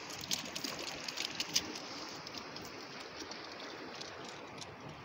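Sea water washing against rocky shore, a steady hiss, with a few sharp clicks and scrapes of footsteps on the rock in the first couple of seconds.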